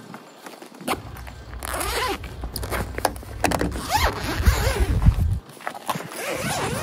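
Zipper on a Yakima roof-rack awning's fabric cover being pulled open along its length in several pulls, with the cover rustling and being handled.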